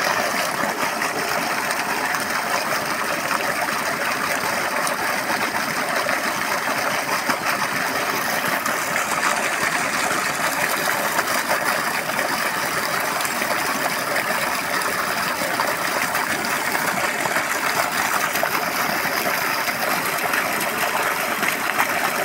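Water gushing steadily from a farm tubewell's pump outlet, a constant even rush with no pauses.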